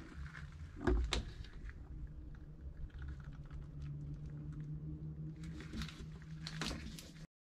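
Plastic squeeze bottle of 75W-90 gear oil being handled while it pours into the front axle's fill hole: scattered light clicks and taps of the bottle and spout, the loudest a little under a second in and another cluster near the end, over a low steady hum. The sound cuts off suddenly shortly before the end.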